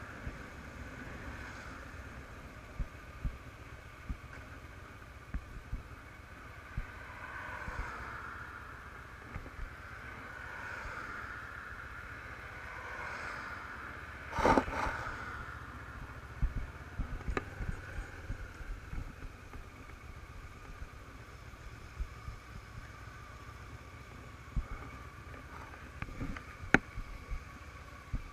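Honda CBF500 motorcycle ridden at town speed, heard on a bike-mounted camera: engine running under steady wind rumble, its pitch rising and falling slowly with the throttle. A brief loud burst of noise about halfway through, and a few sharp clicks near the end.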